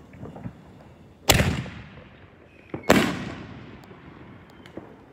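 Aerial fireworks bursting: two loud bangs about a second and a half apart, each trailing off in a long fading echo, with smaller pops and crackles scattered around them.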